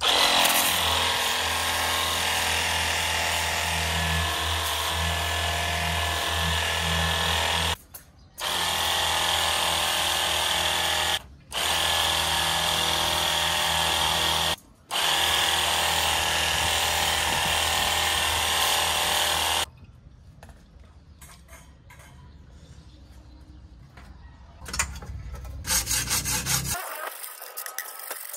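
Cordless pressure washer running and spraying water onto a wire grill grate: a motor hum under the hiss of the jet. It runs in long bursts with three brief stops and shuts off about two-thirds through, leaving quieter knocks and rattling near the end.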